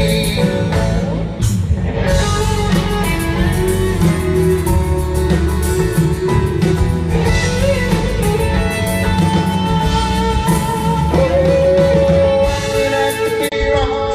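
Country band playing an instrumental break, with a guitar carrying the melody over bass and drums.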